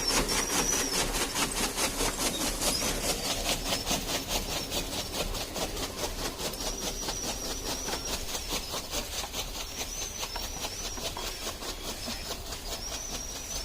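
Buffalo being milked by hand: quick, even squirts of milk striking a pail, one after another in a steady rhythm.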